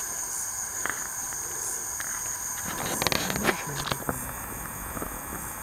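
Night insects trilling steadily in high, even tones. About three seconds in comes a short burst of rustling and clicking close to the microphone, from hands handling the catch.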